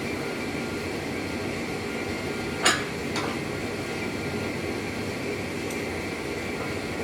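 Two sharp metallic clinks of steel tools in a smithing workshop, the first loud and the second weaker about half a second later, over a steady rushing hum.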